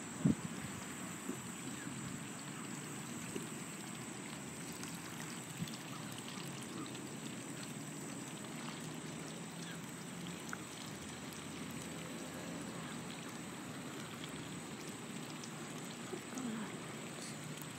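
Steady trickling, water-like noise, with a few soft clicks and one sharp knock about a third of a second in.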